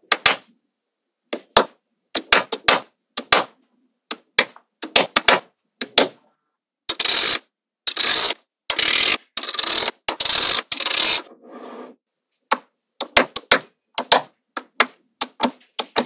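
Magnetic balls clicking sharply as they snap together, in quick clusters of clicks. In the middle come four longer stretches of dense rattling clatter.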